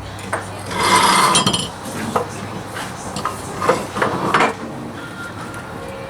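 Hand tools clinking and scraping on metal while the driveshaft mount bolts are worked loose: a few sharp knocks and a longer scrape about a second in, over a low steady hum.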